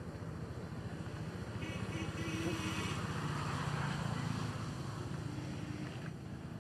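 A motor engine running steadily with a low pulsing hum. It grows louder about two seconds in and eases off again after the middle.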